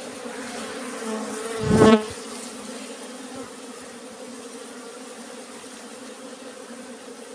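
Dwarf honey bees buzzing steadily in a swarm around their opened nest, stirred up as the comb is cut out. The buzz swells sharply for a moment about two seconds in.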